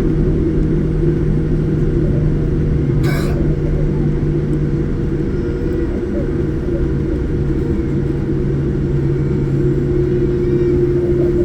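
Airliner's jet engines running steadily under a deep rumble with a steady hum, as heard inside the passenger cabin. A brief sharp click comes about three seconds in.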